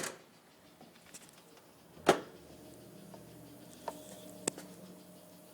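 Mercedes S500 trunk lid shut with a sharp thump about two seconds in, after a clunk right at the start. It is followed by a faint steady hum with a couple of small clicks: the pneumatic close-assist pump running on, which the owner puts down to an air leak in the close-assist system.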